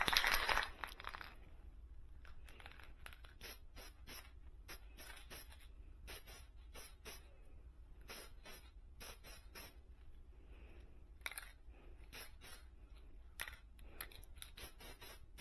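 Aerosol can of nitrocellulose lacquer spraying. One longer hiss stops about a second in, then comes a run of short spray bursts in quick groups as a light coat goes on.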